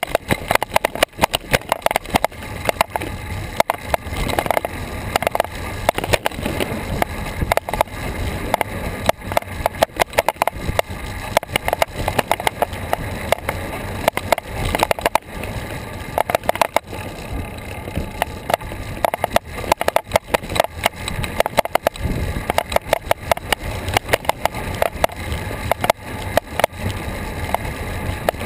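A bicycle rolling over pavement, heard through the action camera mounted on it: a constant, irregular rattle and clatter from road vibration over a haze of wind and tyre noise.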